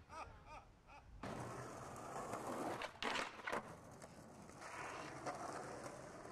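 Skateboard wheels rolling on asphalt. About three seconds in come several sharp clacks of the board as a trick is done, and a single smaller clack follows near five seconds.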